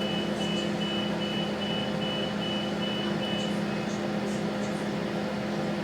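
Train door warning beeper sounding a high, rapid beep about two and a half times a second, stopping about three and a half seconds in, over the steady hum of the 3100 series diesel railcar.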